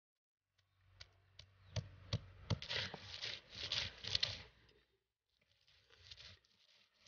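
Raw onions being crushed on a flat stone grinding slab with a stone pestle: about five light knocks a second or so in, then wet rasping and squashing as the pestle is rolled and worked over them, fainter near the end.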